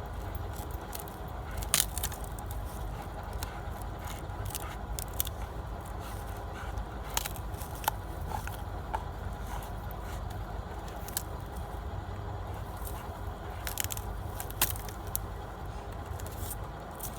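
Black Labrador chewing and tearing at a small tree: wood cracking and snapping in scattered sharp cracks, the loudest about two seconds in.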